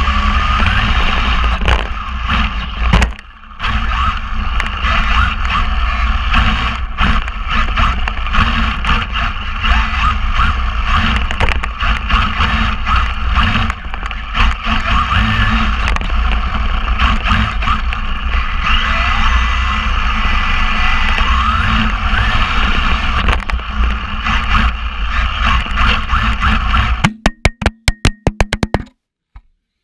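Tamiya TRF 416 electric touring car at speed, heard from a camera mounted on the car: a steady rush of motor, drivetrain and tyre noise, with the motor whine rising and falling as the car accelerates and brakes. Near the end comes a rapid run of knocks as the car crashes and tumbles, then the sound cuts out.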